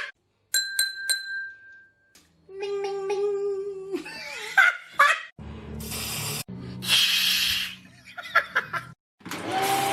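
A quick series of short, different sounds, each lasting a second or two: clicks and a clinking ding near the start, a steady hum, a noisy rush, and voices with held pitched tones, typical of people imitating sounds with their mouths.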